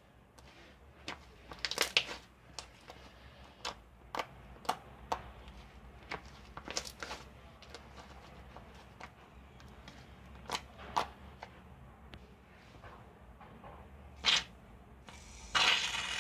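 Scattered small clicks, taps and rustles of things being handled by hand, with a short noisy rustling burst near the end.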